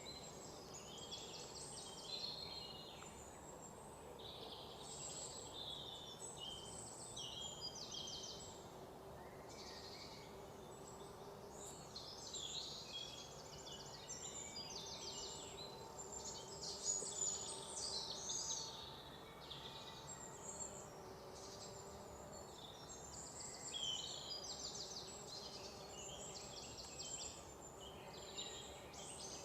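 Faint background birdsong: several birds singing short trills and chirps one after another, over a faint steady hiss of ambient noise.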